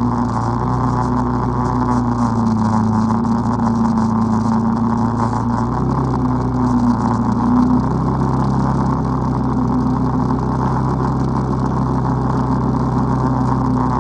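ATV engine running steadily under way, with a brief small rise in revs about halfway through.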